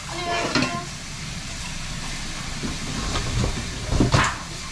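Kitchen tap running into the sink, a steady hiss of water, with a knock about four seconds in.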